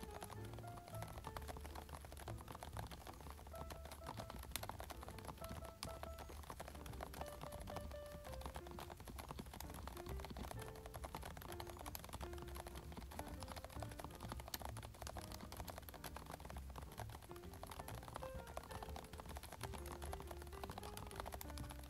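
Continuous typing on a Varmilo Minilo 75% mechanical keyboard fitted with quiet, light Prestige Silence switches: a fast, steady patter of soft keystrokes. Background music plays along.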